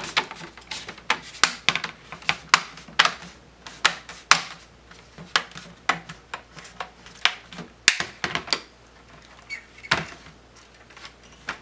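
Plastic screen bezel of an Acer Aspire E14 laptop being pressed onto the lid, its clips snapping into place in a long run of sharp, irregular clicks that thin out near the end.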